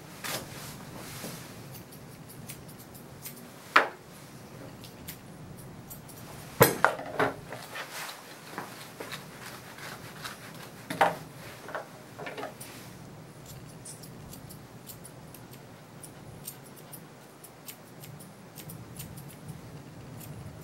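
Grooming shears snipping the fur around a dog's paw: many light, quick snips through the later half, with a few sharper, louder metal clacks before that.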